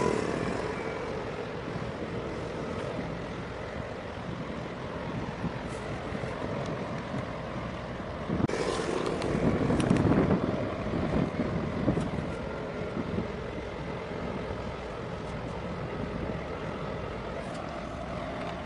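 Steady engine drone mixed with wind noise on the microphone and the wash of harbour water, with a louder rush of wind about halfway through.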